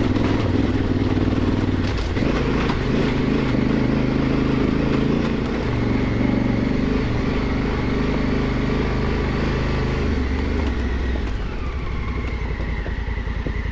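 Honda Africa Twin's parallel-twin engine pulling the bike up a rocky dirt trail, its note shifting up and down with the throttle, then settling into a slower, lower beat near the end.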